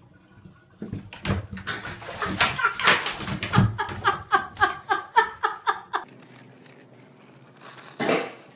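A cat crying out in a rapid run of short, high-pitched calls, about four a second, after a couple of seconds of knocking and clatter.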